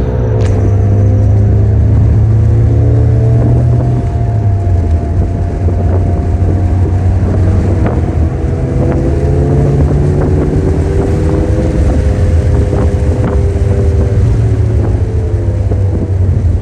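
Mitsubishi Lancer Evolution's turbocharged four-cylinder engine running through a newly installed exhaust, a steady drone whose pitch drops about four seconds in, then slowly rises and falls as the car is driven.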